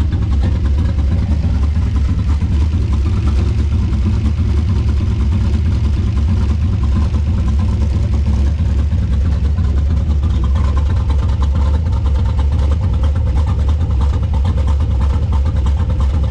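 Turbocharged 5.3-litre LS V8 with a Truck Norris camshaft idling steadily, its sound mostly deep and low.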